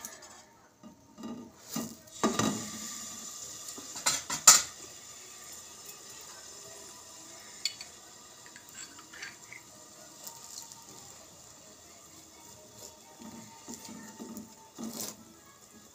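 Metal spatula clinking and scraping against a nonstick frying pan as a slice of French toast is flipped, with a run of sharp clinks about two to four and a half seconds in. Then a faint steady sizzle of the toast frying in butter, with a few soft knocks near the end.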